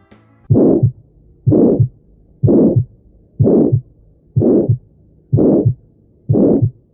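A steady rhythm of pulses, about one a second, seven in all. Each pulse is a short whoosh with a low thump at its start and another at its end.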